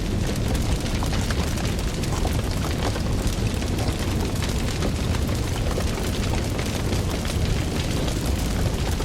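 Fire burning with a deep steady rumble of flame and dense, constant crackling pops.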